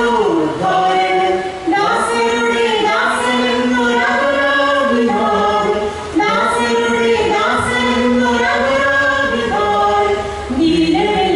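A choir singing a slow song in long held notes.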